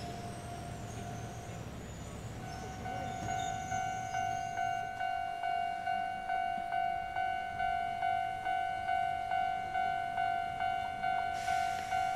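Japanese railway level-crossing warning bell, an electronic tone struck about one and a half times a second, starting a couple of seconds in. It is the signal that a train is approaching and the crossing is closing. A hiss joins near the end.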